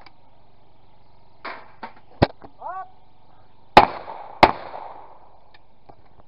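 Shotgun shots on a clay-pigeon trap range: a sharp report about two seconds in, then two loud shots about two-thirds of a second apart, with a brief call and a few smaller clicks in between.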